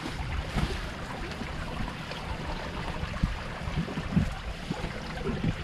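Water splashing and a wet fine-mesh fishing net rustling as it is hauled in by hand, over a low wind rumble on the microphone.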